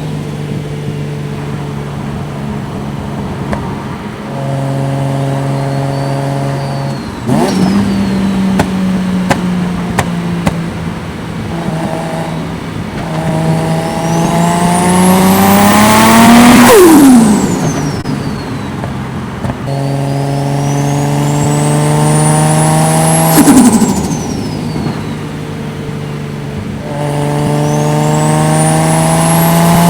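Toyota Soarer's 1JZ-GTE VVTi turbocharged straight-six cruising, then making three short full-throttle pulls. Each time the engine note and a high turbo whistle climb for a few seconds, then the throttle snaps shut and the turbo flutters as the whistle falls away. The pulls come around the middle, about two-thirds in, and at the very end.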